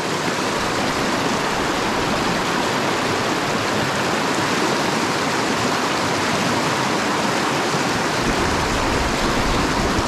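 Mountain creek water rushing steadily, with a low rumble joining near the end.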